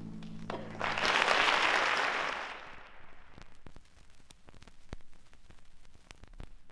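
A held chord from the cast and band ends just under a second in, and a short burst of audience applause follows, fading away within about two seconds. After it, only scattered faint clicks of the vinyl record's surface remain.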